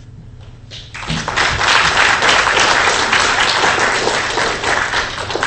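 Audience applauding. It starts about a second in and dies away near the end.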